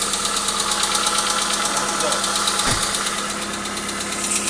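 Hyundai Accent engine running at a steady idle with a fast, even knock.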